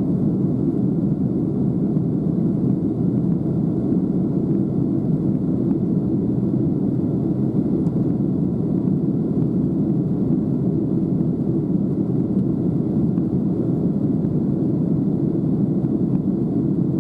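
Airliner cabin noise: a steady low rumble of engines and airflow heard from inside the passenger cabin.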